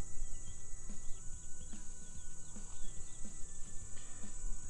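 Steady high-pitched insect chorus in the garden, with a few short bird chirps over it.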